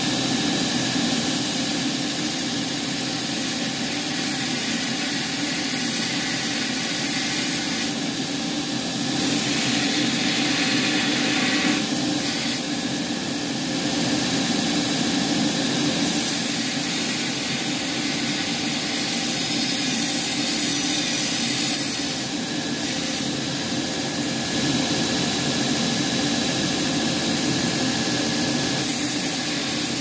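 Belt grinder running steadily, its motor and belt making a constant hum and hiss. A few times a thin steel rod is pressed to the belt, adding a brighter grinding hiss.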